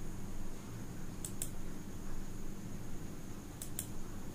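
Two computer-mouse double-clicks about two seconds apart, each a quick pair of sharp clicks, over a steady low hum.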